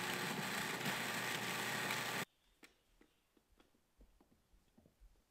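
Food processor running, its blade whirling flour, brown sugar and butter into a crumb topping, for a little over two seconds before it stops abruptly. Faint light ticks and taps follow.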